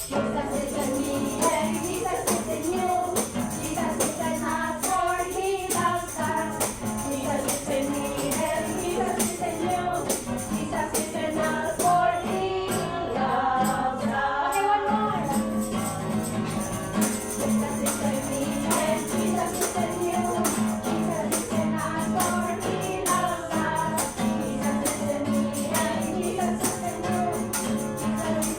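Congregation singing a worship song, with a steady rhythmic tambourine and instrumental accompaniment.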